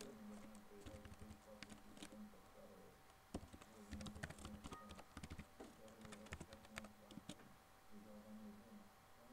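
Faint irregular clicking of keystrokes on a computer keyboard as a web address is typed, over a faint steady hum.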